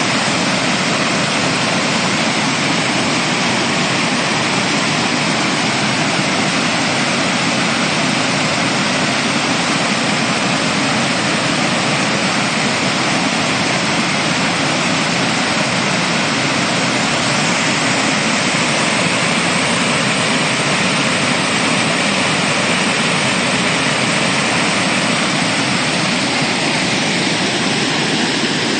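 Waterfall rushing steadily, a loud, unbroken roar of falling water.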